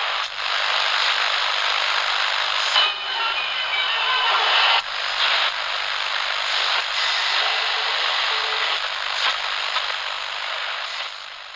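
Radio static: a steady, thin hiss in the middle range, with a few brief dropouts and faint whistling tones drifting through it. It fades out near the end.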